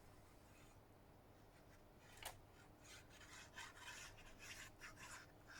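Faint rubbing on paper in quick repeated strokes as a piece of card is stuck down onto a journal page, after a single sharp click a little past two seconds in.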